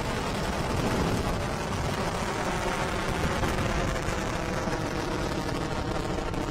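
Falcon 9 first stage's nine Merlin 1D engines at full thrust just after liftoff, a steady dense rocket exhaust noise spread across all pitches.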